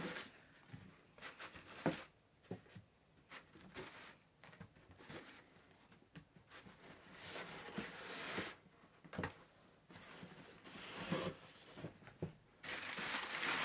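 Paperback books being lifted out of a cardboard box and set down on a tabletop: brown packing paper rustling and crinkling in short bursts, with scattered light knocks as books are put down, and a louder, longer rustle near the end.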